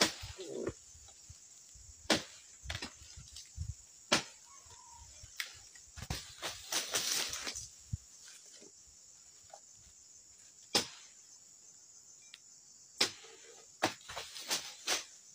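Scattered sharp knocks and a short rustling scrape from a long-handled harvesting tool working around the base of an oil palm, over a steady high insect drone.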